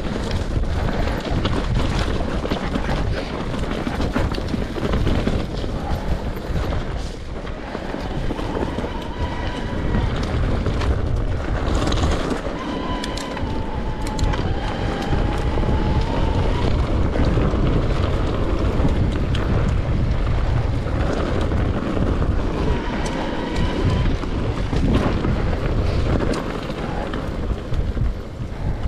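Enduro motorcycle engine running and revving up and down over rough ground, under heavy wind rush and frequent knocks and rattles.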